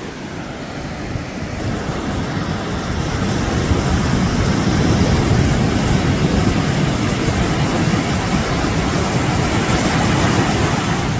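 Steady rushing of surf and wind at the water's edge, swelling over the first few seconds and then holding.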